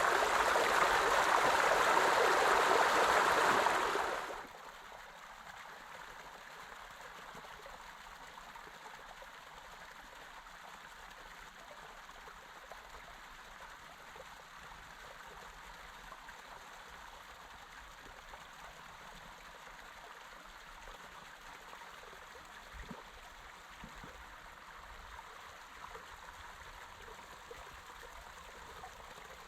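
Running creek water: a loud rush of water for about four seconds that drops suddenly to a faint, steady trickle.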